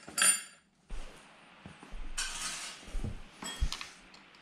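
Metal clinks as scooter parts or tools are handled: a sharp click with a short metallic ring near the start, then a scrape and a few light knocks.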